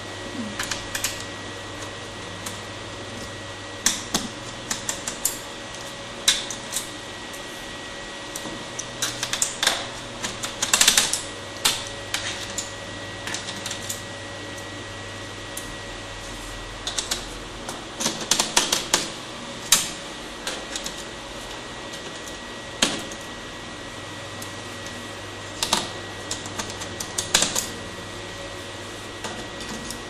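Irregular clusters of small sharp clicks and taps as a screwdriver works screws out of a Dell Vostro 3550 laptop's plastic bottom case. Underneath runs a steady faint hum with a thin high tone.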